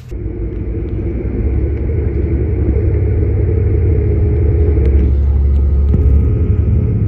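A passenger train running, a loud low rumble that grows over the first two seconds and then holds steady.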